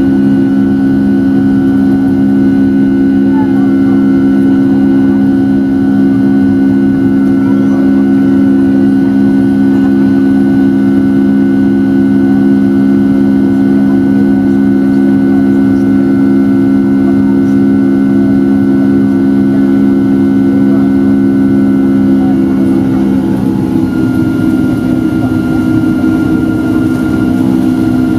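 Rolls-Royce RB211 turbofan engines of a Boeing 757-200, heard from the cabin at climb power just after takeoff: a loud, steady drone with strong humming tones and a thin high whine above them. About 23 seconds in, the engine note shifts slightly and the whine grows stronger.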